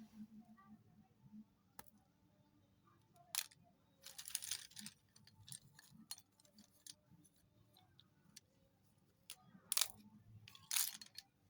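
Slate pencils snapping and crunching: scattered sharp cracks, a crunching stretch of about a second some four seconds in, and two loud snaps near the end.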